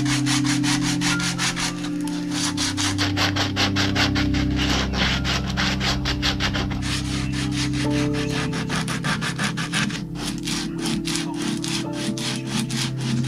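Sandpaper rubbed by hand back and forth over the wooden headstock of a bass neck, in quick, even scratchy strokes. Background music with long held notes runs underneath.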